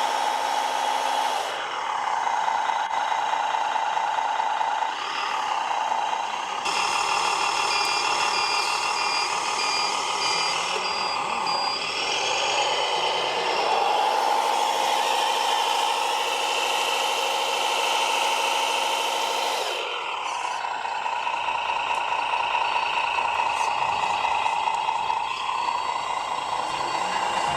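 Radio-controlled construction machines working. A steady motor whine shifts up or down in pitch and settles again about a second and a half in, around twelve to fourteen seconds and around twenty seconds in. A reversing beeper sounds in stretches.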